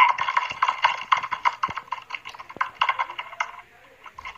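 Fast, irregular keyboard typing, several keystrokes a second, heard through a video call's audio; it stops about three and a half seconds in.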